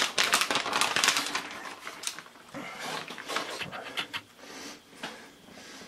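Seasoning shaker rattling as salt is shaken over the food, then soft rustles and light taps of hands pressing the filling into a cast iron pan.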